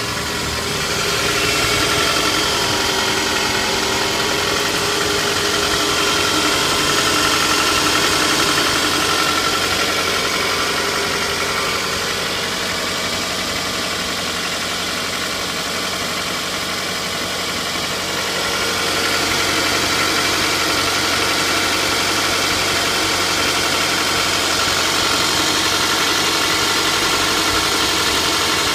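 Toyota 2AZ-FE 2.4-litre four-cylinder engine idling cold with a knock. The owner says the knock is no longer heard once the engine warms up. Its sound gets a little louder about two seconds in, softens for several seconds mid-way, then picks up again.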